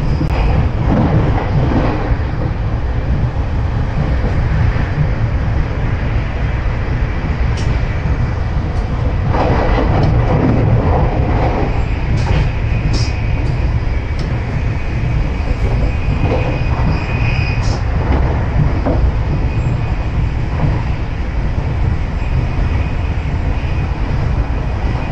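Passenger train running along the track: a steady, loud low rumble of wheels on rails with scattered clicks and a brief faint high squeal.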